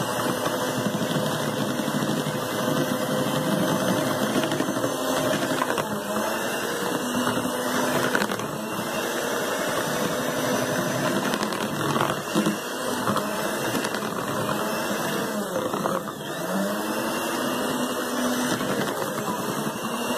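Electric hand mixer running at low speed, its twin beaters whisking a runny mix of cream, condensed milk and mango puree. A steady motor whir with a hum whose pitch wanders slightly.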